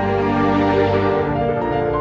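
Background music: a slow, sad-sounding score of sustained notes with piano.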